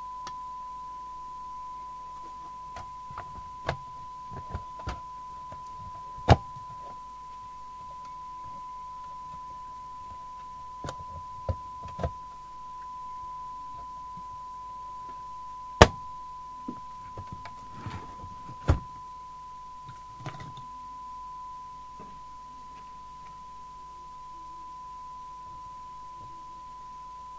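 A steady test tone from the CB radio test set-up, with scattered knocks and clicks as the metal mounting bracket and case of a Mustang 3000 CB radio are handled on the bench; the loudest are single sharp knocks about six, sixteen and nineteen seconds in.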